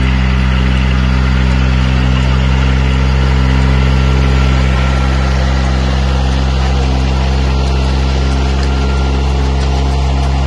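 Yanmar ride-on rice transplanter's engine running steadily as the machine moves along the paddy, planting.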